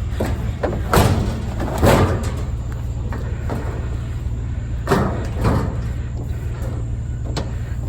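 Sheet-metal file cabinet knocking and banging as it is shifted and handled, with four louder bangs spread through, over a steady low hum.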